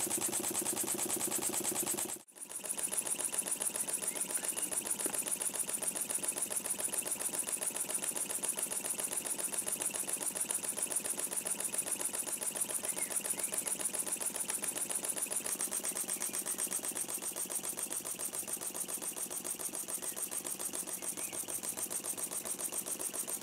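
Small model engines running with a fast, steady, even beat. For the first two seconds the scratch-built single-acting mill engine runs on its own, likely on compressed air; after a brief break, a Mamod model traction engine runs on, belt-driving the mill engine's flywheel.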